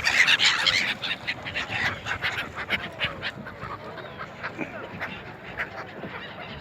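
A flock of gulls calling all at once in a dense mass of harsh squawks, loudest in the first second and then thinning into many separate calls.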